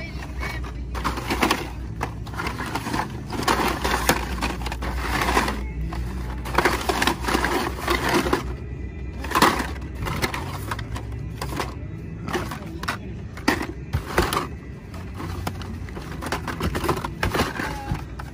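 Plastic blister packs of Hot Wheels cars on cardboard backings rustling and clacking against each other as a hand shuffles through a box of them, in irregular crinkles and clicks.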